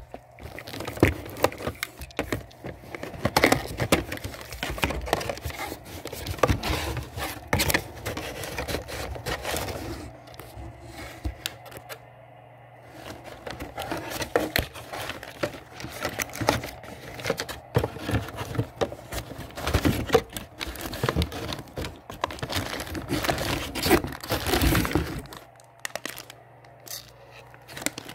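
Gauge packaging being opened by hand: irregular crinkling, tearing and rustling of wrapping and box, with small knocks and scrapes as parts are handled, and a short lull about twelve seconds in.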